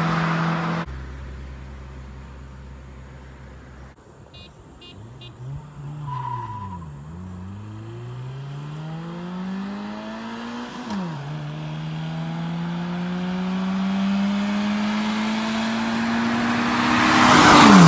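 Car engines at full throttle in a street race, the revs climbing, then dropping sharply about eleven seconds in as a gear is shifted. The revs then climb again as the cars come closer and louder, and the pitch falls as they pass near the end.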